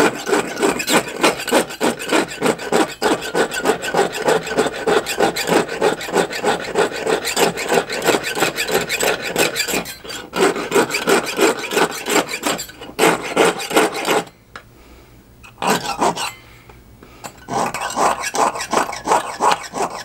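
Jeweler's saw (Haymaker saw frame) blade stroked rapidly back and forth against the edge of a metal strip, used like a file to take down the remaining line: an even rasping at about three strokes a second. About two-thirds of the way through it stops for a few seconds, apart from one short burst, then starts again.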